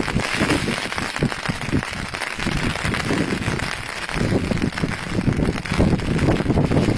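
Wind buffeting the microphone in irregular gusts, over a steady hiss.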